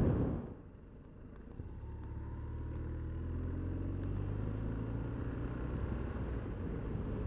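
BMW R1200 R's air/oil-cooled boxer twin running at a steady, moderate pace. A rush of wind noise cuts off in the first half second, and the engine note comes up again about a second and a half in.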